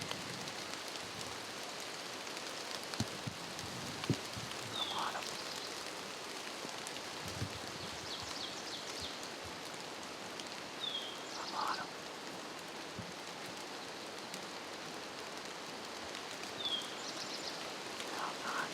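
Steady patter of rain, with a bird repeating a short call about every six seconds.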